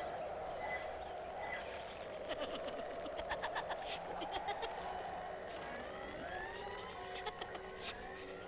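Spooky Halloween sound effects: a steady hiss, then a run of sharp rattling clicks, then several overlapping rising wails near the end.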